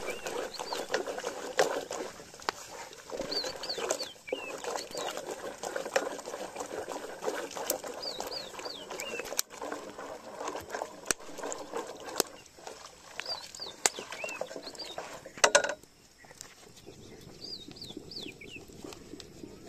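Farmyard chickens calling, with short, high, falling chirps that come in little groups every couple of seconds. Under them is a steady crackling, clattering background. A loud knock comes about fifteen seconds in, and the background goes quieter after it.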